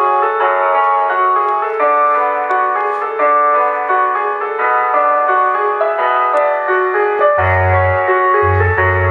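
Music with a keyboard melody of sustained notes played through a homemade computer sound system's speakers; about seven and a half seconds in, deep bass notes from the subwoofers come in, pulsing on and off.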